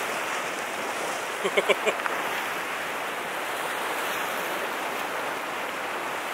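Steady wash of ocean surf with wind noise. A few short pitched chirps come about a second and a half in.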